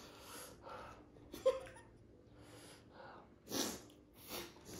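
A person eating dahi puri, with a few short breathy sounds and a sharp mouth click about one and a half seconds in; the loudest breaths come near the end.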